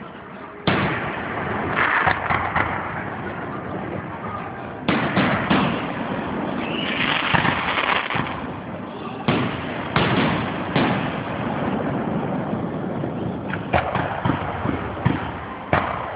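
Aerial fireworks shells launching and bursting: about a dozen sharp bangs at uneven intervals, each trailing off in a rumble, some coming in quick clusters.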